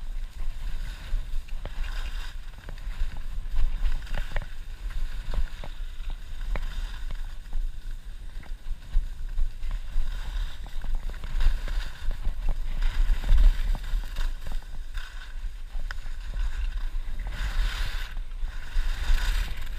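Skis sliding and carving over packed snow, a hiss that swells with each turn, over heavy wind buffeting on the skier's own action-camera microphone during a downhill run.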